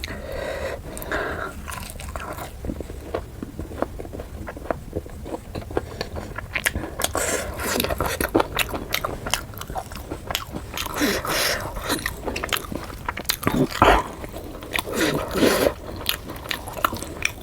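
Close-up eating sounds of a person chewing puri soaked in chicken curry: irregular wet smacking and small crunchy clicks of the mouth. The sounds grow busier and louder about halfway through.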